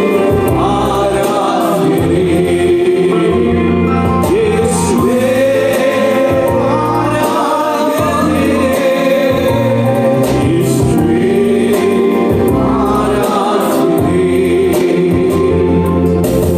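Gospel worship song sung by a group of men into microphones, over steady low held notes that change every second or two.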